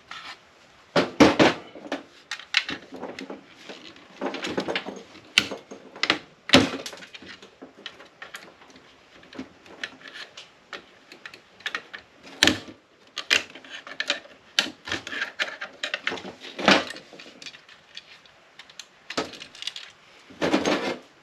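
Irregular clicking, clinking and rattling of small metal parts and hand tools as the inside of a UPS battery-backup unit is pulled apart, with several sharp clicks and short bursts of clatter.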